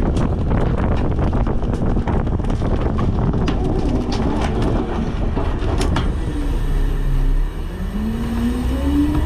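Autocar/Heil front-loader garbage truck working: its engine runs under a rapid clatter of knocks and bangs for about the first six seconds. Then the engine revs up with a steadily rising whine near the end, the sound of it being run up to drive the hydraulics.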